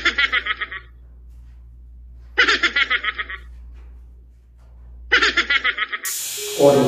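A short snickering laugh, a quick run of high giggles under a second long, heard three times about two and a half seconds apart over a low steady hum. Near the end a rushing noise sweeps in and music starts.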